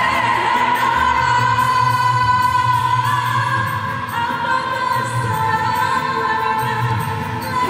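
A woman singing karaoke into a handheld microphone over a backing track, amplified through loudspeakers. She holds long, drawn-out notes over a steady bass beat.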